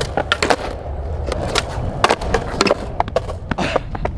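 Skateboard wheels rolling on a concrete sidewalk in a steady low rumble, broken by a string of sharp clacks as the tail pops and the deck slaps back down during flat-ground tre flip attempts.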